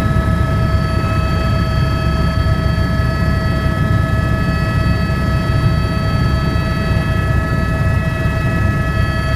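Aircraft in steady flight: a constant deep engine rumble with several steady whining tones over it.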